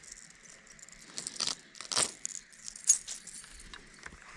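Small clicks, clinks and rustling of fishing tackle being handled: the lure and its line are cleared of a leaf and cast with a baitcasting reel. There is a sharp click about two seconds in and a louder, brighter click near three seconds.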